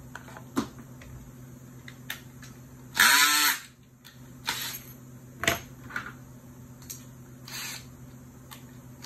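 A power drill runs in one short, loud burst about three seconds in, among scattered clicks and knocks of handling, over a steady low hum.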